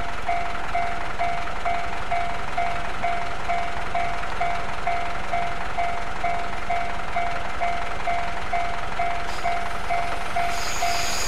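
Japanese level-crossing warning bell ringing steadily, about two electronic strokes a second. Near the end a JR Central 373 series electric train comes close, and a high wheel squeal rises over the bell.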